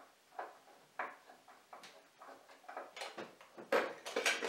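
Light wooden knocks and clicks from handling a homemade drum sander: its hinged wooden hood is taken hold of and lifted, with the loudest knocks near the end.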